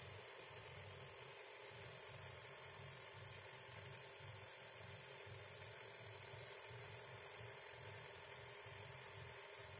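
Industrial sewing machine running in free-motion embroidery, stitching through fabric stretched in a hoop: a continuous motor hum with an uneven pulsing low thrum.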